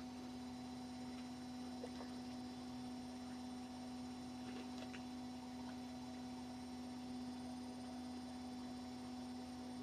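Steady electrical mains hum in the recording, one low constant tone with fainter higher tones, with a few faint ticks.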